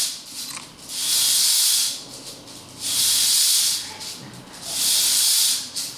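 Hula hoop swishing in regular bursts as it spins, a loud hiss about a second long repeating roughly every two seconds.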